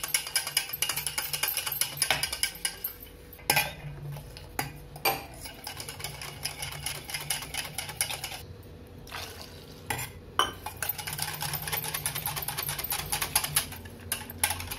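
Wire whisk beating thin gram-flour batter in a stainless steel bowl: rapid rhythmic clicking and scraping of the wires against the metal, with a few short pauses.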